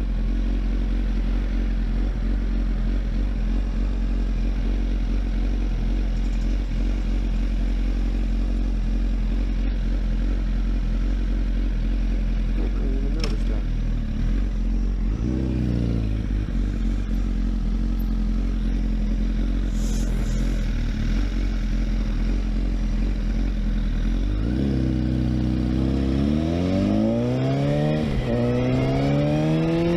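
Honda CBR sportbike engine idling steadily at a stop, with one brief blip of the throttle about halfway through. Near the end it pulls away hard, the revs climbing and dropping back at each of two quick upshifts.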